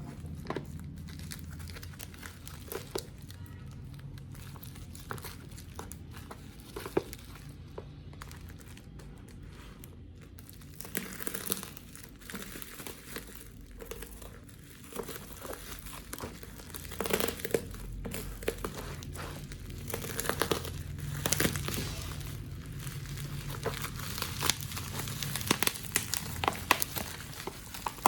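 Crinkling and rustling handling noises with scattered sharp clicks, over a steady low hum; the handling gets busier about halfway through.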